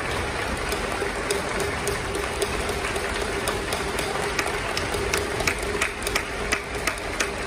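Steady room noise with a faint steady hum, and scattered sharp knocks or claps that come irregularly and grow more frequent toward the end.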